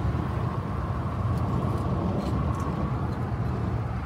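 Steady low rumble of engine and tyre noise inside a car's cabin while driving at highway speed.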